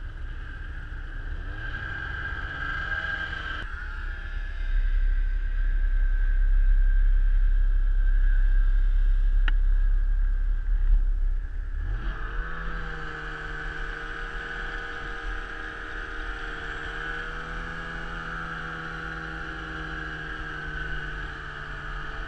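Snowmobile engine revving up, then a loud low rumble for several seconds while moving. About twelve seconds in, the engine revs up quickly again and holds a steady pitch.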